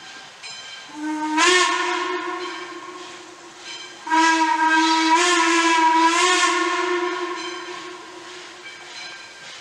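Steam whistle of Wilmington & Western No. 58, a 1907 Baldwin 0-6-0 steam locomotive, blowing two blasts: a shorter one about a second in, then a long one about four seconds in that swells twice before fading away.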